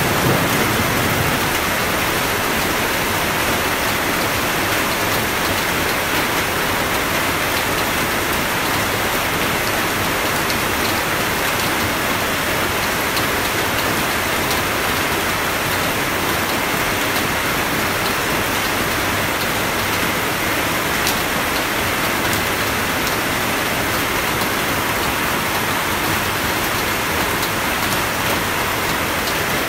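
Steady, even rain hiss without let-up, with the tail of a low thunder rumble dying away in the first second.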